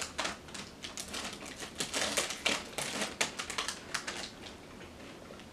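Plastic snack pouch crinkling as it is handled, in quick irregular crackles that die down about four seconds in.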